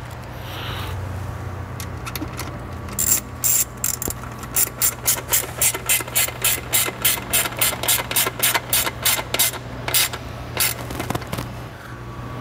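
Hand ratchet with a Torx T30 socket running a bolt back into the intake plenum: the ratchet is swung back and forth, clicking on each back-stroke about three times a second, starting about three seconds in and stopping shortly before the end.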